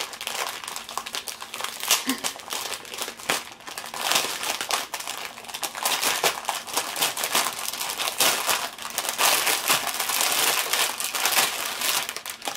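Clear plastic packaging crinkling and crackling under the hands as a bag holding a roll of small diamond-painting drill packets is handled and opened. The crinkling goes on without pause, busier in the second half.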